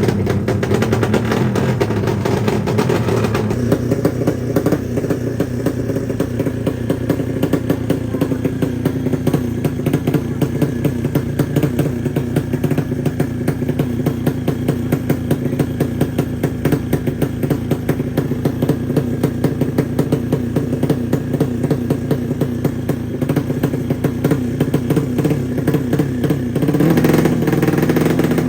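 A single-cylinder four-stroke drag-race motorcycle engine running with an open exhaust, its rapid firing pulses steady for most of the time. It gets louder and higher near the end as it is revved.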